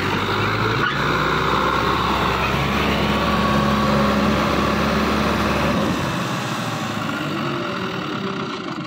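Fiat 640 tractor's diesel engine running hard under load, pulling a trolley loaded with sugarcane and blowing black smoke; it eases off about six seconds in.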